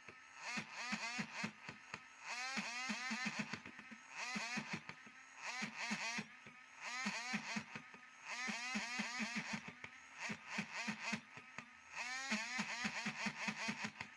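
Razor scraping across stubble in quick short strokes, in runs of about a second with brief pauses between them.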